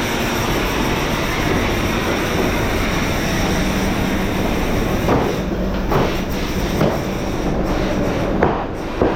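Factory machinery running with a steady loud rumble and hiss, with a few sharp knocks in the second half.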